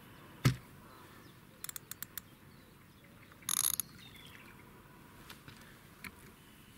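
Carp rod and reel being handled on a rod pod: a sharp knock about half a second in, a quick run of clicks from the reel about two seconds in, then a short rasp.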